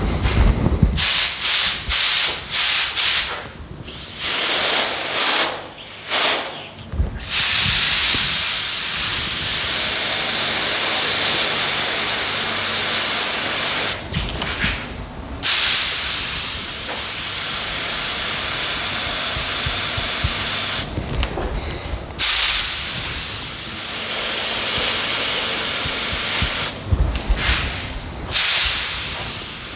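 Compressed-air spray gun hissing as its trigger is pulled: several short bursts in the first few seconds, then long steady blasts broken by three brief pauses.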